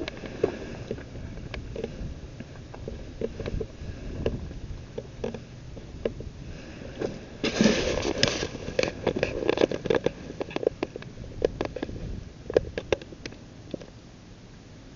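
Outdoor background noise: a low rumble with scattered clicks and crackles, and a louder patch of rustling noise about seven and a half seconds in that lasts around a second.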